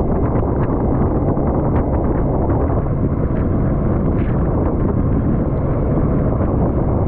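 Steady wind rush buffeting the microphone over a motorcycle running at road speed.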